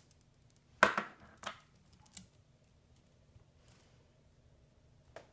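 Metal parts clicking as a threaded fitting is turned into a hand pump's base: one sharp click about a second in, then two fainter clicks.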